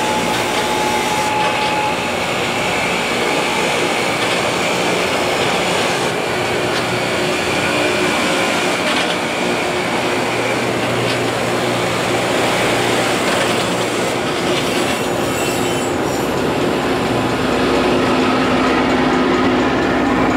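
Loram rail grinder train passing close by, its rotating grinding stones grinding the rail in a loud, steady, harsh noise mixed with the rumble of the cars rolling over the track.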